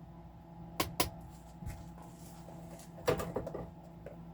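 A few sharp clicks and knocks from kitchen items being handled, two close together about a second in and a short cluster just past three seconds, over a steady low hum.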